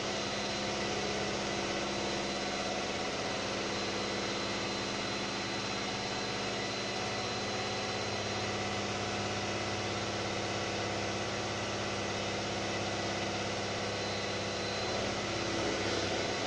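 Electric mixer running with a steady motor hum, whipping cream.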